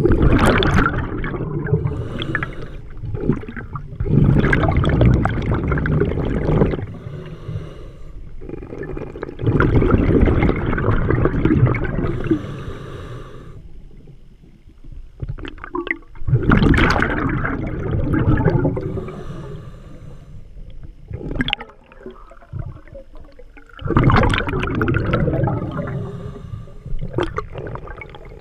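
Scuba regulator breathing underwater: long bursts of exhaled bubbles rushing and gurgling every several seconds, with quieter gaps between breaths.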